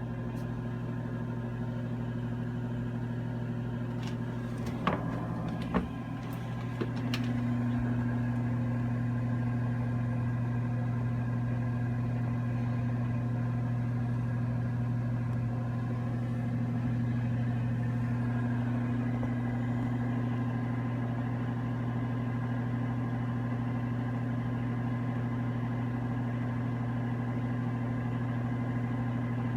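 Propane gas furnace starting up: a steady motor hum, a few sharp clicks about four to seven seconds in, then the furnace runs louder and steadily. The clicking on start is loud enough to wake the owner at night, and he does not know whether it means a fault.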